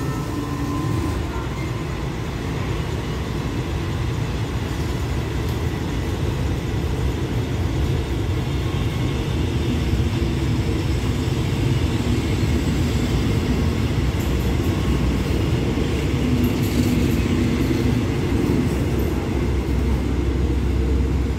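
Passenger train pulling out, its coaches rolling past on the track with a steady rumble that grows louder over the first several seconds. The last coach passes near the end.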